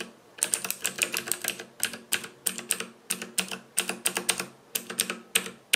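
Mechanical keyboard with clicky Outemu blue switches being typed on steadily, about four keystrokes a second. The typist says it has no case resonance at all.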